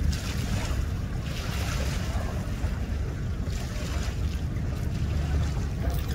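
Wind buffeting the microphone in a steady low rumble, with small lake waves splashing against a concrete boat ramp every second or two.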